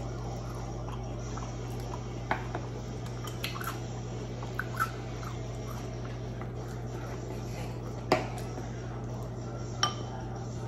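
Knife and fork clicking and scraping against a wooden serving board while cutting squid: a handful of short sharp clicks, the loudest about eight seconds in, over a steady low hum.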